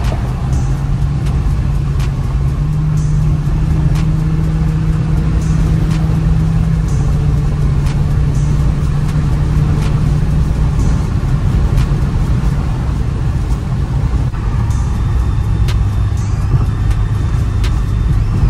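Infiniti Q50 3.0t twin-turbo V6 cruising at highway speed, heard from inside the cabin as a steady engine and tire rumble. Music plays over it.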